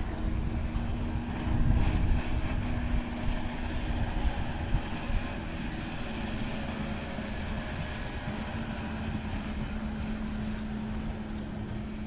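Boat motor running at a steady pitch, with wind buffeting the microphone.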